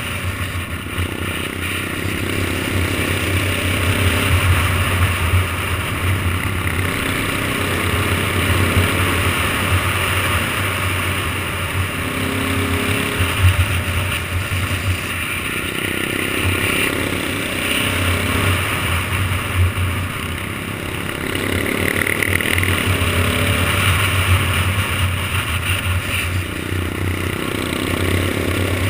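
KTM 690 single-cylinder motorcycle engine running under way, its pitch rising and falling several times as the throttle is rolled on and off.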